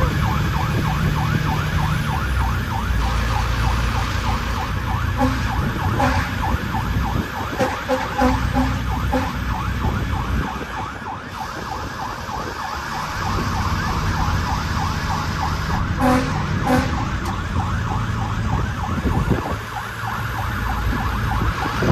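Fire truck siren sounding in a fast, continuous warble, heard from inside the cab over the low running of the truck's Detroit Diesel Series 60 engine, with a few short, louder tonal blips.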